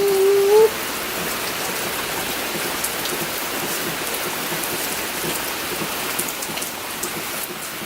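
Steady rain falling: an even hiss with scattered drop ticks. A brief held voice sound comes in the first moment.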